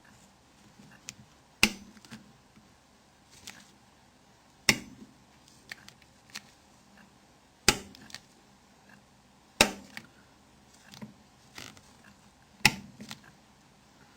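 Torque driver with a Torx Plus size 6 bit, set to 25 N·cm, tightening small screws one after another. Five sharp clicks come about every two to three seconds, with fainter ticks of the bit and screws between them, as each screw reaches torque.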